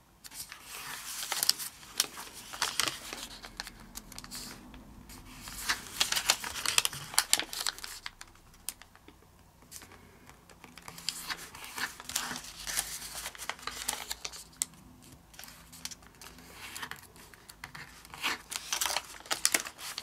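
Origami paper being folded and creased by hand: the sheet crinkles and rustles as it is lifted and folded over, and fingers press the folds flat, in irregular bursts with a quieter pause about eight seconds in.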